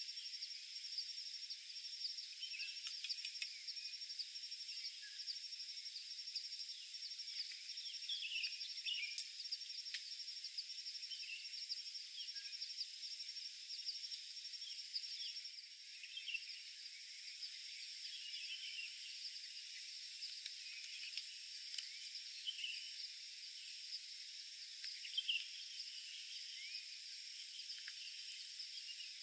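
Outdoor evening ambience: a steady, shrill insect chorus trilling without a break, with scattered short bird chirps and a few faint clicks.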